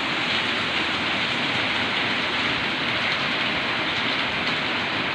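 A steady, even hiss that runs unbroken, strongest in the upper-middle range, with no pitch or rhythm in it.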